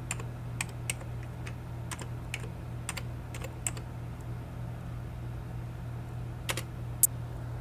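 Keystrokes on the Amiga 2000's keyboard as a web address is typed: a run of clicks over the first few seconds, then two louder clicks near the end, over a steady low hum.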